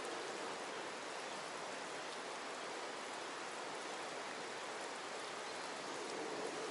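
Steady water noise outdoors: an even hiss with no single splashes or clicks standing out.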